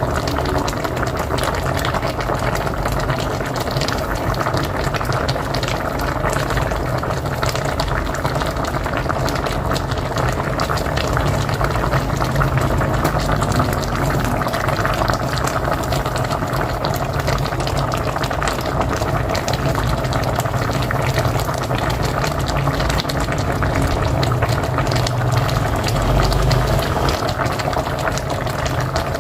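Pot of mocotó (beef feet) boiling hard on a wood-fired stove: steady, dense bubbling with a low rumble underneath.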